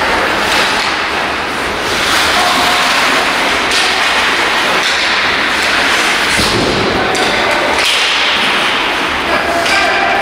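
Ice hockey play: skates scraping the ice, stick clacks and the puck thudding against the boards, with sharp knocks throughout, echoing in the rink hall.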